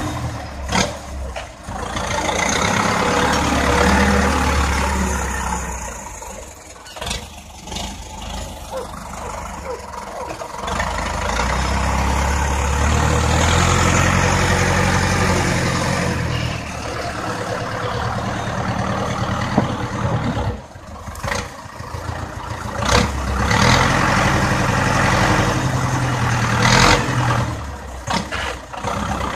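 Zetor 7245 tractor's four-cylinder diesel engine running and revving up in several long surges as the front loader digs into and lifts manure, with a few sharp knocks in between.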